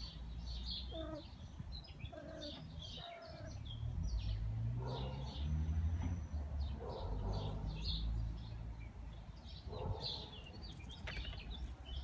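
Small birds chirping over and over, short high chirps scattered through, over a low rumble that swells in the middle.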